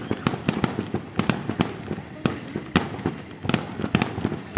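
Fireworks display: a rapid, irregular string of sharp bangs from aerial shells bursting, several a second.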